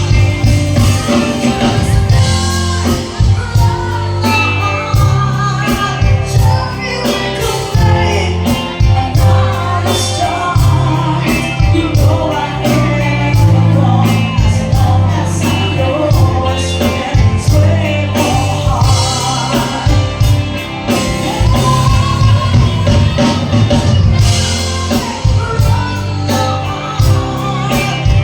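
Band music with a singer: a sung melody over a stepping bass line and a steady drum beat.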